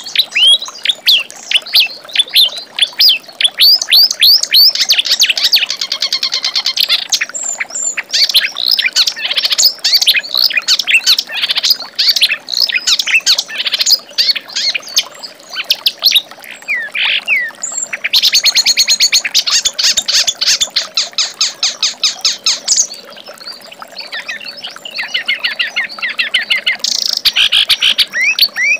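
Kerak basi (reed warbler) singing: long runs of fast, harsh chattering notes and whistles, broken by a few brief pauses.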